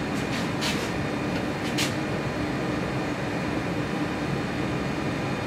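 Steady hum of a running HVAC system, with a faint low tone held throughout. Three short, light ticks sound in the first two seconds.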